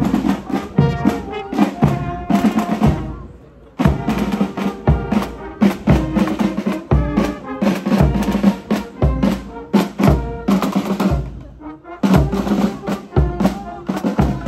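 Marching band playing a march: trombones, saxophones, clarinets and trumpets over bass drum and snare drums, with a steady marching beat. The music falls away briefly about three seconds in and again near twelve seconds, each time coming back in on a drum beat.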